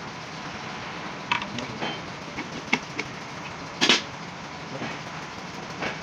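Scattered metal clinks and knocks of parts and tools being handled while a heavy truck clutch pressure plate is fitted, about half a dozen in all, the loudest a double knock about four seconds in, over a steady background hiss.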